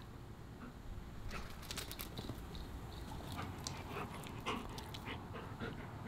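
A dog panting, with scattered short clicks and rustles.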